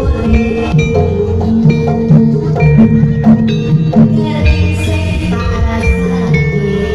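Live jaranan gamelan music: struck metal mallet percussion ringing out pitched notes in quick succession over a dense, steady percussion layer.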